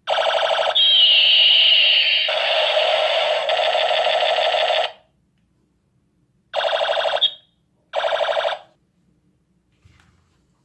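Battery-powered toy gun sound effects: a pulsing electronic tone with a falling zap sweep lasting about five seconds, then two short electronic bursts as the trigger is pulled again.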